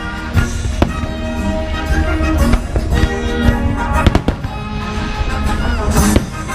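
Aerial fireworks shells bursting with several sharp bangs, the strongest about half a second, one second, two and a half, four and six seconds in, over steady orchestral-style music from the show's soundtrack.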